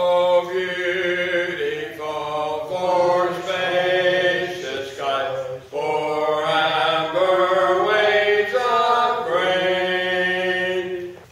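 Opening music of voices singing long held notes in a slow, chant-like melody, moving to a new note every second or two. It stops just before the end.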